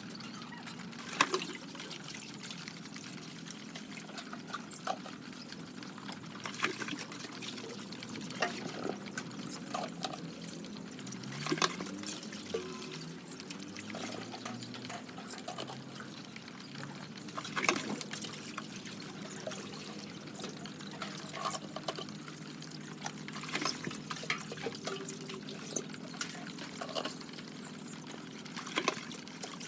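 Liquid pouring and trickling, with irregular sharp clicks and knocks over a low steady hum.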